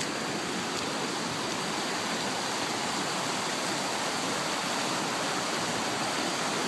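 Steady rush of water flowing at a dam, an even noise with no breaks.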